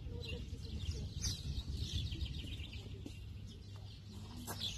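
Small birds chirping repeatedly in quick, short calls, over a steady low rumble.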